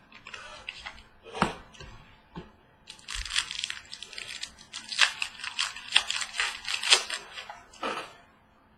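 A few light clicks of cards being handled, then about five seconds of dense crackling as a trading-card pack's foil wrapper is torn open and crumpled.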